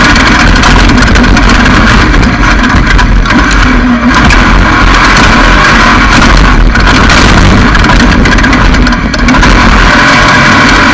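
Off-road race vehicle's engine running hard at high revs, loud and close, with brief dips in level about four and nine seconds in.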